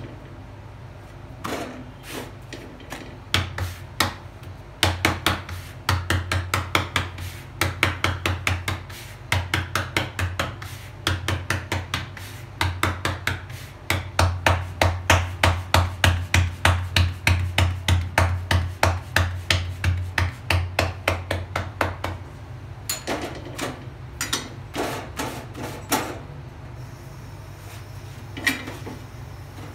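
Hands patting jowar bhakri dough flat on a floured countertop: runs of quick soft slaps, about three or four a second, loudest in the middle. They thin out to a few scattered knocks near the end.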